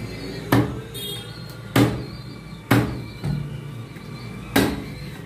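Butcher's cleaver chopping a chicken on a wooden log chopping block: four heavy chops at uneven intervals.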